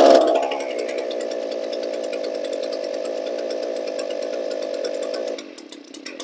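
Echo two-stroke string trimmer engine, just started on the pull cord, running steadily at high speed. About five seconds in it drops to a quieter, pulsing idle.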